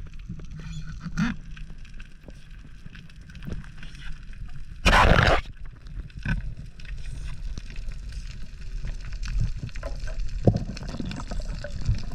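Underwater sound picked up by a diver's head-mounted camera: low water rumble with faint hiss and small knocks, and one loud rush of noise lasting about half a second about five seconds in.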